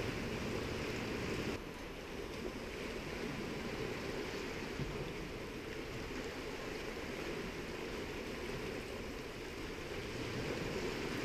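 Steady rushing of sea surf and wind.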